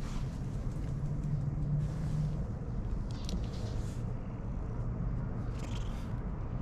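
Cat purring close to the microphone: a low, steady rumble, with a couple of brief rustles about three and six seconds in.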